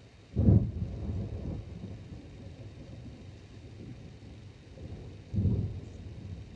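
Thunder: a sharp, loud crack about half a second in that rumbles off over a couple of seconds, then a second, slightly weaker clap about five seconds in that also rumbles away.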